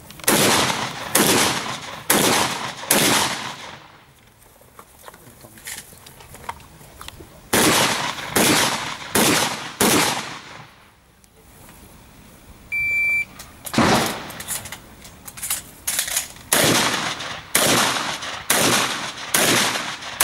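Shotgun fire in a practical shooting stage: runs of about four shots a little under a second apart, separated by pauses of a few seconds while the shooter moves between firing positions. A short electronic beep sounds about two-thirds of the way through.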